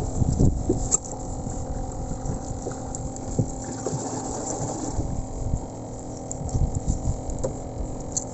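An engine hums steadily at a constant pitch over low rumbling, with a few brief knocks.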